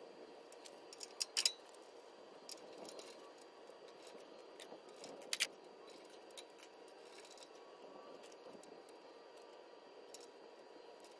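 Faint metallic clinks and ticks of hand tools and small parts as a cotter pin is fitted and a tie rod end is set back into a truck's steering knuckle: a quick cluster about a second in and a sharp double clink a little past five seconds, over a low steady hiss.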